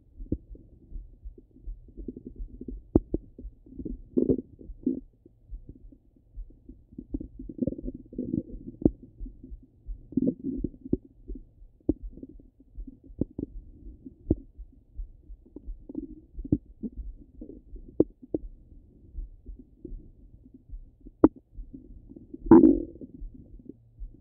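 Stomach and bowel gurgles heard through a stethoscope on the belly: irregular rumbling gurgles come and go every few seconds, the loudest near the end, with short sharp clicks scattered between them.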